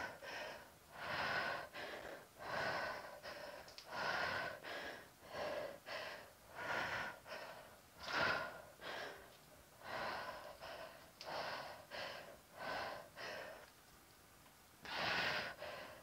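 A woman breathing hard with exercise exertion, audible in-and-out breaths at a steady pace of about one breath every second or so, with a short pause near the end.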